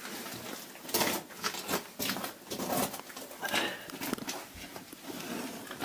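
Irregular scraping and rustling of clothing and boots against rock as a person clambers through a cramped cave passage.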